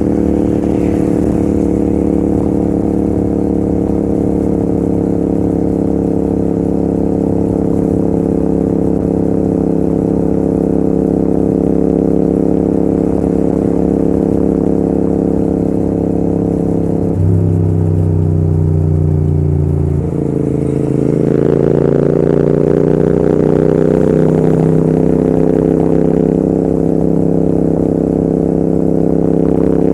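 Royal Enfield Continental GT650's 648 cc parallel-twin engine and exhaust running hard at speed. Its note sinks slowly. About two-thirds of the way through it changes abruptly and dips for a few seconds, then rises again and settles into a steady pull.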